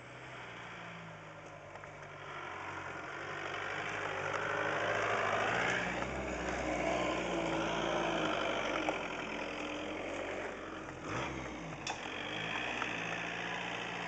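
VW T3 Syncro camper van driving slowly up and pulling in, its engine getting louder as it approaches over the first several seconds, then running steadily at low speed.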